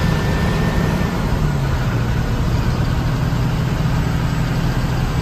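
A bus engine drones steadily with road noise while the bus drives along a highway, heard from inside the cabin. The engine's pitch drops slightly about a second and a half in.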